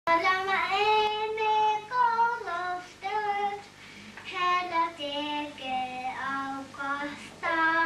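A young child singing a simple tune in short phrases with brief pauses between them; the melody steps lower in the middle and rises again near the end.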